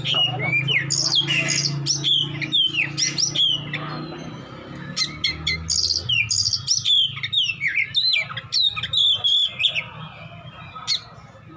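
Oriental magpie-robin (kacer) singing a fast, varied stream of sharp downslurred whistles mixed with harsh chattering and clicking notes, the aggressive 'besetan' style of song.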